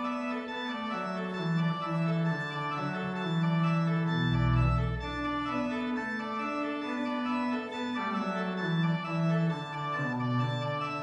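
Church organ playing slow, sustained chords, with deep pedal bass notes joining about four seconds in.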